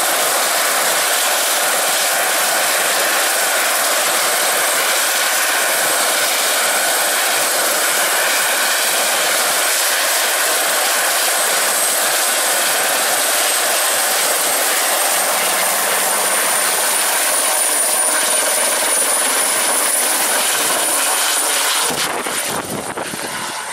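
Small turbine helicopter running on the ground with its rotors turning: a steady high turbine whine over broad rotor and engine noise, the whine rising slightly a little past halfway. Near the end it lifts off, and deeper rotor beating comes in as the level starts to waver and drop.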